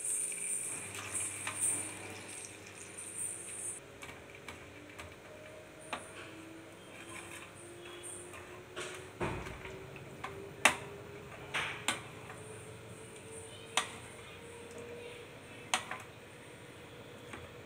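Steel spoon clinking against a nonstick pan as fried rings are stirred into palm-jaggery syrup, with several sharp, separate clinks spread over the middle and later part.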